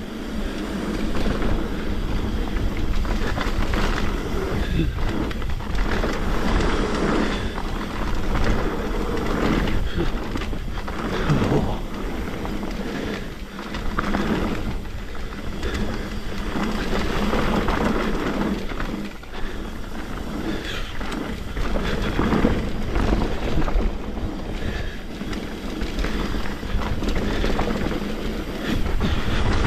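Mountain bike descending a rough trail, heard from a chest-mounted action camera: a continuous rush of wind and tyre noise with the rattle and knocks of the bike over the ground.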